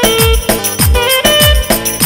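Clarinet playing a slow Turkish çiftetelli dance tune (ağırdan sallama), with held, ornamented notes over a beat of deep drum hits about twice a second and a shaker-like rattle.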